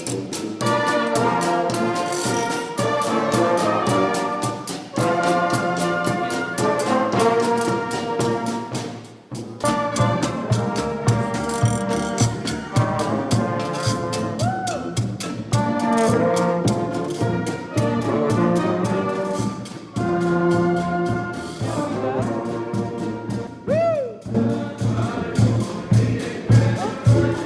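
Street brass band playing a New Orleans second-line tune: trumpets and trombones in phrases over a steady beat, with a few swooping note bends near the end.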